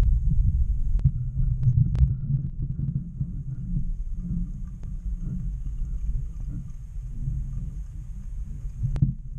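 Muffled low rumble of water moving around a submerged camera housing, with a few sharp clicks about a second in, near two seconds and near the end, over a faint steady high whine.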